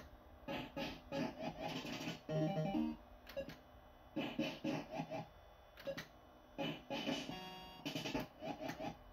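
Barcrest Alphabet fruit machine sounding its electronic beeps and short jingles while the reels spin and stop. It is a string of short bleeps and clicks, with a brief tune about two and a half seconds in and a quick run of even beeps near the end.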